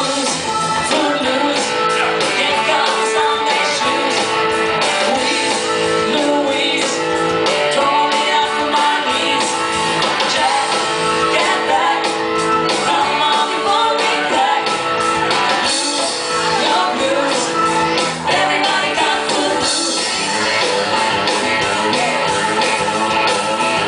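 Live rock band playing: electric guitar and bass guitar with a male and a female singer singing into microphones, loud and continuous.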